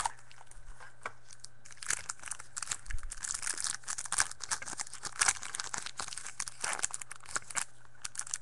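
Foil wrapper of a football trading-card pack crinkling and tearing in irregular crackles as it is opened by hand.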